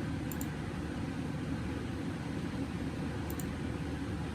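Steady low rushing noise, with two or three faint high ticks.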